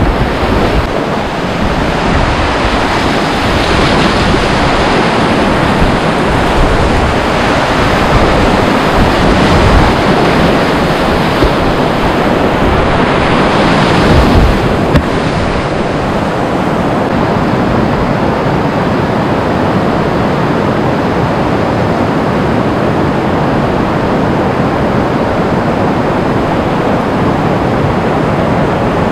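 Loud, steady rushing of churning whitewater in a flooded river rapid, close around a kayak. About halfway through it swells briefly as the kayak ploughs through a breaking wave.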